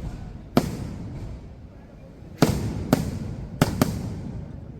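Fireworks going off: a sharp bang about half a second in, then four more in quick succession between two and a half and four seconds, each dying away in a low rumbling echo.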